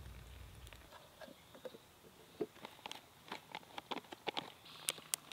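Faint crinkling and clicking of a foil freeze-dried meal pouch as water is poured in and the pouch is handled, in a run of short irregular ticks. A low engine rumble from a riding lawn tractor fades out about a second in.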